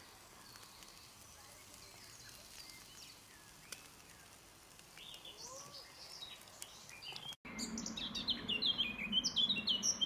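Wild songbirds chirping, faint and scattered at first; after a sudden break about seven seconds in, louder, rapid chirping takes over.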